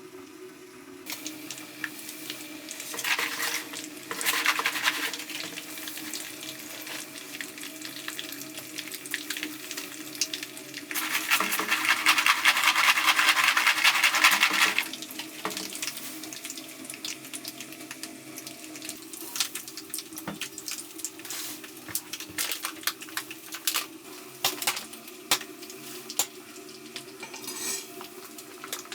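Cookware being handled: utensils and pots clinking and scraping in many small clicks, with a louder hissing rush lasting about four seconds near the middle, over a faint steady hum.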